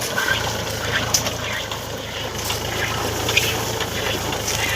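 Tractor engine running steadily as it pulls a potato harvester, a constant low hum with scattered short clicks and rattles over it.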